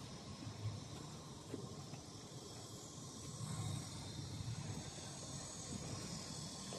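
Steady faint outdoor background hiss, with soft low rumbles coming and going.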